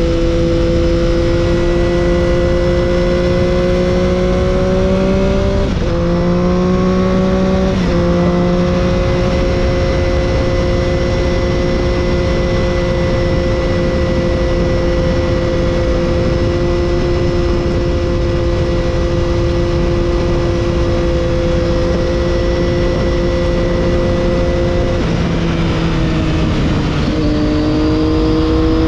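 Triumph Daytona 675's inline three-cylinder engine through an Arrow exhaust, heard onboard while riding: the revs climb and step down at two upshifts about six and eight seconds in, then hold steady. The engine note drops away from about twenty-five seconds in and picks up again near the end, with steady wind and road noise throughout.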